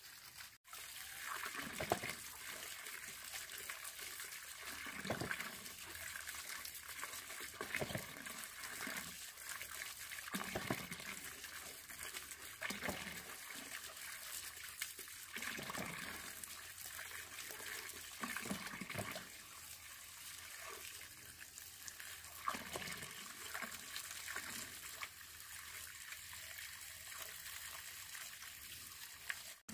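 Water splashing and trickling, with irregular splashes every second or two over a steady running-water hiss.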